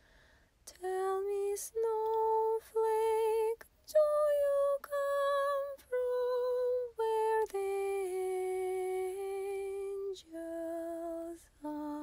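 A woman's unaccompanied voice singing a slow, lullaby-like melody in held notes with a slight vibrato, starting about a second in.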